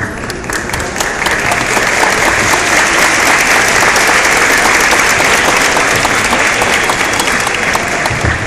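Audience applauding, swelling over the first second and thinning out near the end.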